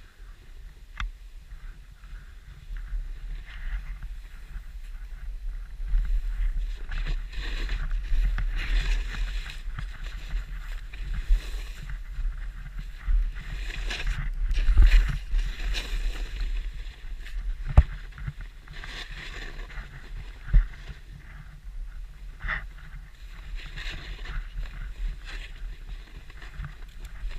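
Wind buffeting the microphone in a steady low rumble while sliding down through deep powder snow, with swells of snow hiss on each turn and a couple of sharp knocks in the second half.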